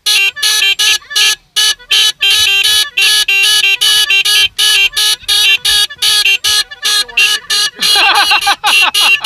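Music: rapid, rhythmic stabs of one bright, horn-like pitched note, with a run of falling sweeps about eight seconds in.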